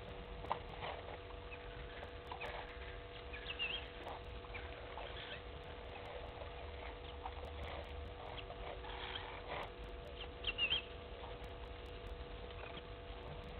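Elephants drinking at a waterhole: irregular splashing, dripping and slurping as their trunks draw up water and squirt it into their mouths. Short high bird chirps come through a few times, over a steady faint hum.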